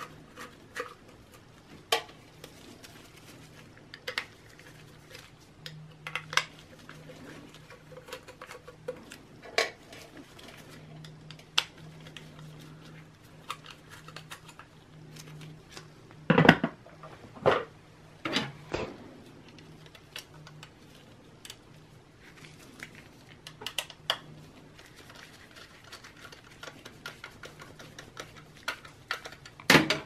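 Scattered metallic clicks and clinks as a Phillips screwdriver, small screws, a 3.5-inch hard drive and a 2.5-inch drive bracket are handled against a steel PC case. There is a cluster of louder knocks about halfway through, over a faint steady low hum.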